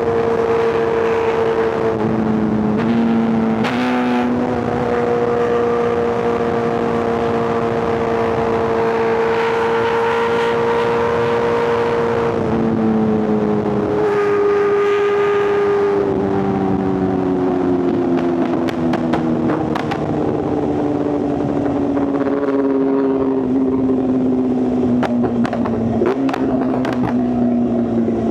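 Inline-four superbike engine running under steady throttle, with a brief dip and step in pitch about two to four seconds in, then the engine note sinking slowly through the second half as the bike eases off. Wind and road noise rush beneath it.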